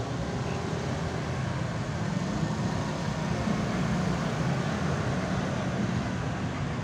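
Road traffic: motor scooters and cars passing close by, a steady blend of engine noise and tyre noise.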